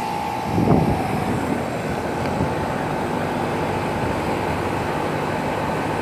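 Outdoor condenser fan and compressor of a 2017 Rheem 90,000 BTU central air conditioning condensing unit running with a steady rush of air. A thin steady whine stops under a second in, with a brief surge, while the rush goes on. The owner takes the unit to be short cycling.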